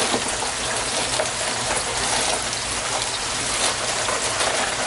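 Steady hiss of water running into an aquaponics grow bed of lava rock, with light clicks of the rocks shifting under hands.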